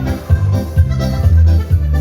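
Accordion-led dance music with a steady beat and a moving bass line.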